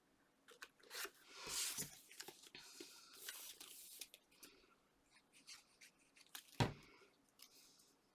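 Paper and card being handled on a tabletop: rustling and light clicks, with a sharp knock about six and a half seconds in, the loudest sound, as the card is set down or pressed.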